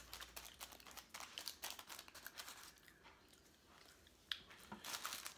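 Faint, irregular crackling and crinkling of paper taco wrappers being handled, with a lull and then one sharper click about four seconds in.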